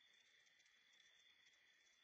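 Near silence, with a faint, steady high-pitched trill of night insects.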